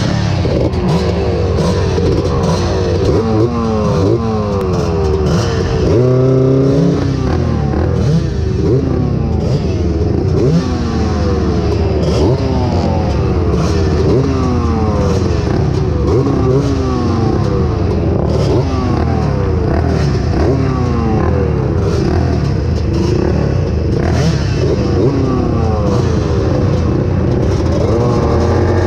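Several three-wheeler ATV engines idling at the starting gate and being blipped over and over, the rising and falling revs overlapping; the nearest is a Honda ATC250R two-stroke single. The revving builds near the end as the start approaches.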